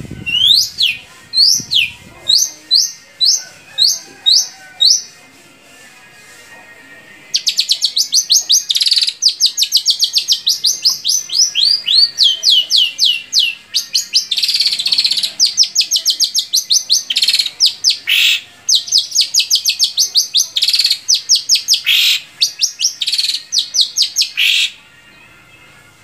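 Long-tailed shrike (cendet) singing: sharp, sweeping whistled notes, spaced out at first, then after a short pause a fast, dense run of notes broken by a few harsher calls, stopping about a second before the end.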